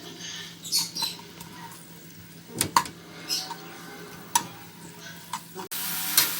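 A metal spoon clicking and scraping against a pan as crushed garlic is stirred in ghee. Nearly six seconds in, the sound jumps suddenly to a loud, steady sizzle of the garlic frying.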